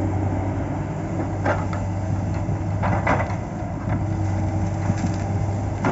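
Diesel engine of a log-loading machine running steadily, with a few short knocks of pine logs being handled, two pairs about a second and a half apart.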